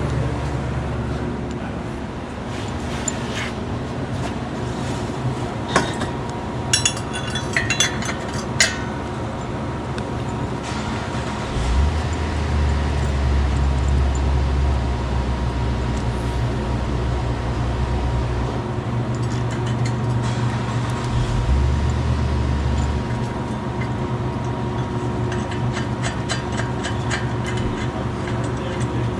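A steady low mechanical hum with a thin steady whine. A handful of sharp metallic clicks comes between about 3 and 9 seconds in, and twice a deeper rumble swells for several seconds.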